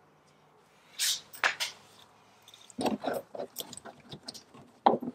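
Gloved hands handling small parts against a truck's plastic wheel-well liner: a brief rustle about a second in, then scattered clicks and scrapes in the second half.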